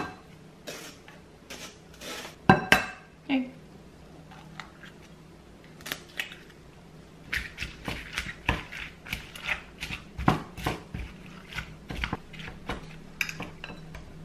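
Kitchen utensils and dishes clattering during food prep: irregular clicks and knocks, one clink ringing briefly about two and a half seconds in, then a quicker run of taps in the second half.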